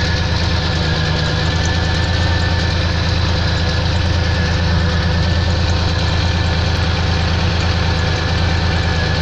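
Pontiac car engine idling steadily with a knock in it.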